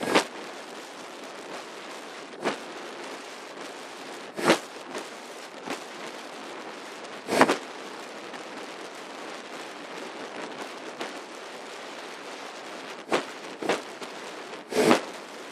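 Steady wind rush over the microphone of a quad bike moving at about 60 km/h, broken by sharp buffeting pops about seven times, several of them close together near the end.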